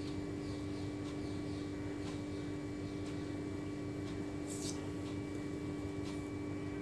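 A steady low hum and hiss of background noise, with a few faint ticks as glass seed beads and a needle are handled, the clearest about four and a half seconds in.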